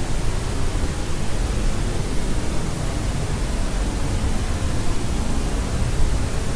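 Continuous white noise for sleep, a steady, even hiss with no change, its weight lying toward the low end.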